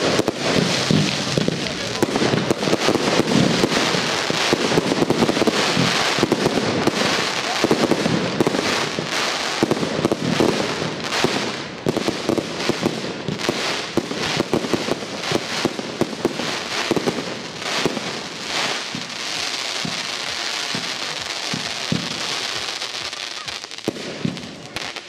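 Aerial fireworks finale: a dense, rapid barrage of bursts going off close together, easing somewhat in the second half.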